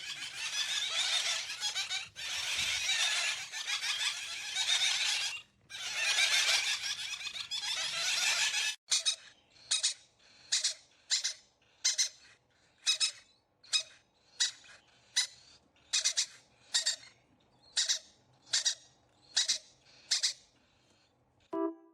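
A parrot screeching in long, harsh stretches of calling, then giving short repeated squawks at about one a second.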